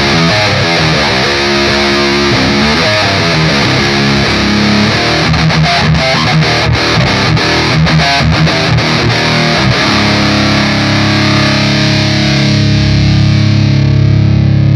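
Electric guitar through an Electro-Harmonix Nano Metal Muff distortion pedal, playing a fast distorted metal riff. Around the middle the notes are short and chopped off sharply. From about ten seconds in, one chord rings out steadily.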